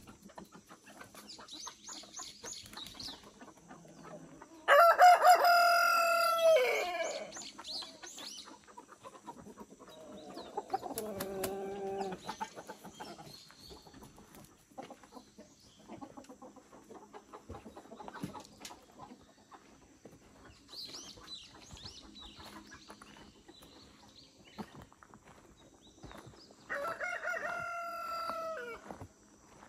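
A rooster crows twice, once about five seconds in and again near the end, each crow lasting about two seconds. Between the crows, chickens cluck in a lower voice.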